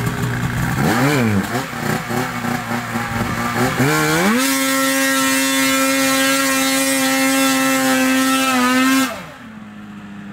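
Snowmobile engine revving. There are a couple of quick throttle blips about a second in, then the pitch climbs near four seconds and holds high and steady for about four and a half seconds. Near the end the engine drops off sharply to a lower pitch.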